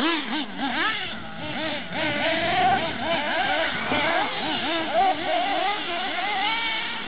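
Small nitro engines of radio-controlled off-road cars revving up and down, several overlapping whines rising and falling a few times a second.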